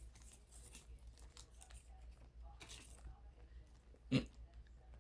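Faint sticky crackling and rustling of slime being stretched and rolled by hand, with one short louder sound about four seconds in.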